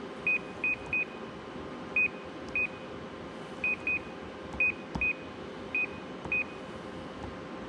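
Konica Minolta AccurioPress C3070 touch-panel key beeps: about eleven short, identical high beeps at irregular intervals, each confirming a press as its parts counters are selected and cleared in service mode. A steady hum runs underneath.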